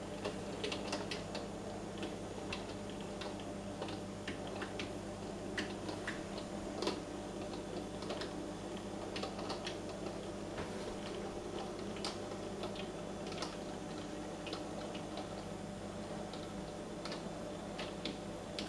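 Model tram locomotive on a Halling motor bogie, with model wagons, running slowly along the layout track: a steady low hum under many irregular small clicks and ticks from the wheels on the track.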